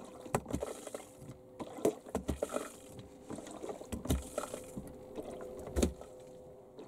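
Manual diaphragm bilge pump being worked by hand to empty a flooded bilge, giving a series of irregular knocks and clunks over a faint steady hum.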